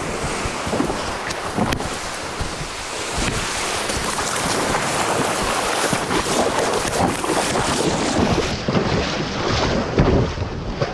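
Wind buffeting the microphone over ocean surf breaking on the beach, rising and falling in gusts.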